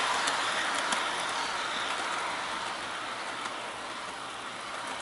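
Model trains running on track: a steady whirring rattle of small wheels and motors with a few light clicks, gradually getting quieter. Most of the noise comes from the larger On30-scale train rather than the quiet-running N-scale set.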